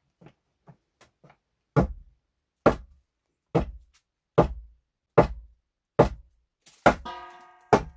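Hammer blows on a wooden roof post being fitted under the ceiling beam: a few light taps, then eight even, sharp knocks a little under one a second. A short ringing tone sounds near the end.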